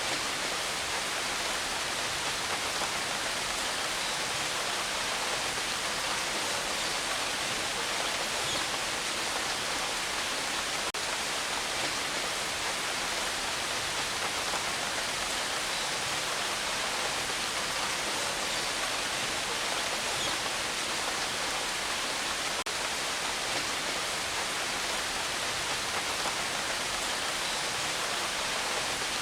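Steady, even rainfall with no thunder, a dense hiss of drops.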